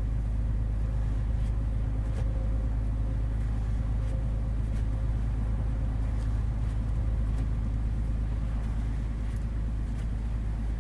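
Heavy truck's engine running steadily, heard inside the cab as a low, even drone, with a few faint clicks now and then.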